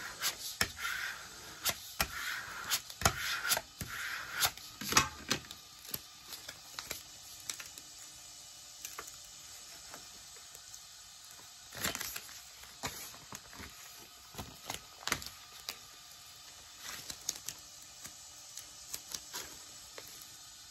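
Hands working a sheet of adhesive craft vinyl on its paper backing. A plastic scraper rubs across the sheet for the first few seconds, then scattered crackles, clicks and light taps follow as the vinyl is peeled and the sheets are shifted.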